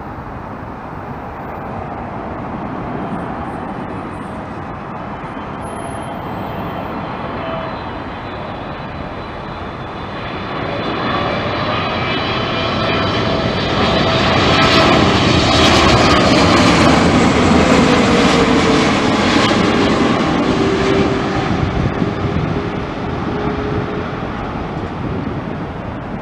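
Boeing 777-300ER's twin GE90 turbofans on landing approach: a jet roar that grows steadily louder, is loudest a little past halfway as the airliner passes close by, then eases off, its whine falling in pitch as it goes past.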